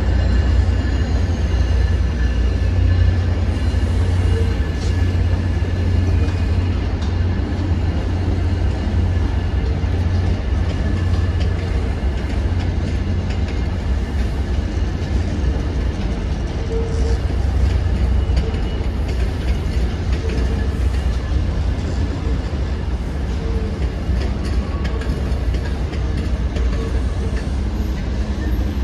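MBTA diesel commuter rail trains moving through the station tracks: a steady low rumble with faint steady high-pitched tones above it.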